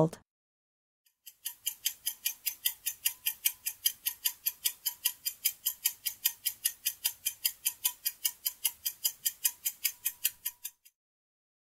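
Clock-ticking countdown timer sound effect: even, quick ticks about four a second, starting about a second in and stopping shortly before the end.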